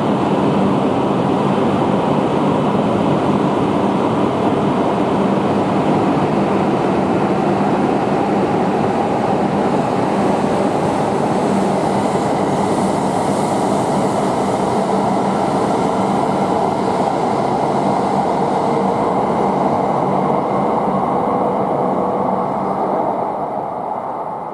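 E5 series Shinkansen train moving along the platform track: a loud, steady rumble of running gear with a low hum, fading away over the last couple of seconds.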